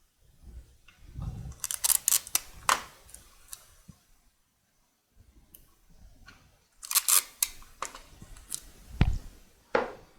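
Tape being pulled off the roll and torn in short rasping rips, in two bursts about two and seven seconds in, while two pieces of 2x4 are taped together; a single hard wooden knock near the end.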